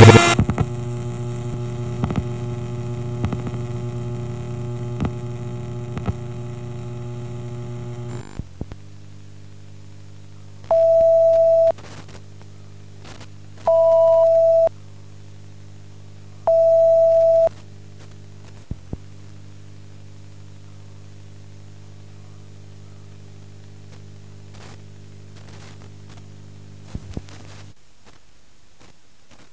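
Steady electrical hum over the broadcast's silent emergency card, with a few faint ticks. The hum drops in level partway through and cuts off near the end. In the middle come three loud electronic beeps, each about a second long at the same mid pitch, the second with a higher tone over it.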